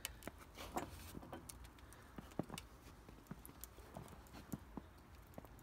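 Faint, irregular clicks and knocks from a homemade truck-bed crane as it is turned on its bearings by hand with a bar.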